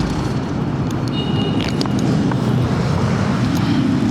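A vehicle engine running steadily, with a brief high-pitched tone about a second in.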